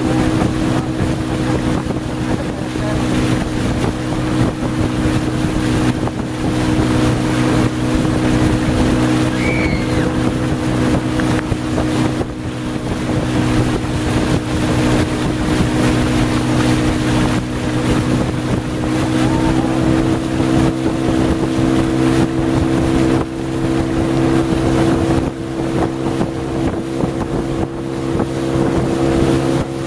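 Boat outboard motor running steadily at speed, its pitch stepping up slightly about two-thirds of the way through, with wind buffeting the microphone and water rushing past.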